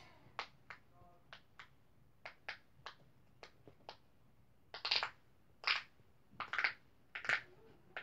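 A silicone pop-it fidget's bubbles being pressed in one by one, a string of short soft pops at an uneven pace, with four louder pops from about five seconds in.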